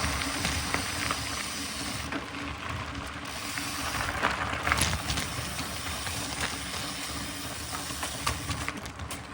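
Mountain bike being ridden on a trail: a steady rushing noise of wind and tyres, with scattered small clicks and rattles.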